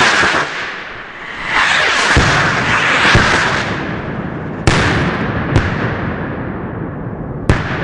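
Dirk Maas Red Dancing Devil salute rockets: rocket motors hissing as they climb, with duller bangs about 2 and 3 seconds in. Then three sharp, loud salute bangs, at about four and a half, five and a half and seven and a half seconds.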